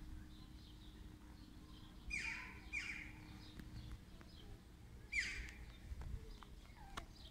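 A kitten mewing in three short, high calls, two close together about two seconds in and one about five seconds in, with faint bird chirps behind.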